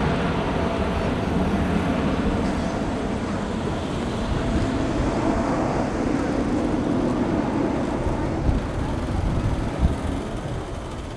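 Jet noise of a Boeing 777F's twin GE90 turbofans at takeoff thrust, a deep rumble heard from behind as the freighter climbs away, slowly fading as the higher part of the sound dies off first. Two brief low thumps come near the end.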